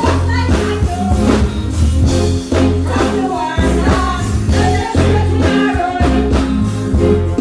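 A woman singing into a handheld microphone over a bass-heavy backing track with a steady drum beat, played loud through a stage sound system.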